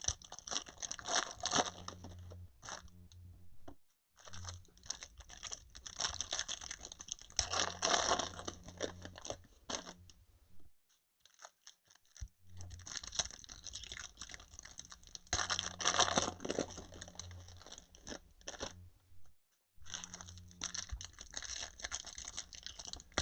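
Trading-card packaging crinkling and tearing as it is opened by hand, in rustling bursts with short pauses between them.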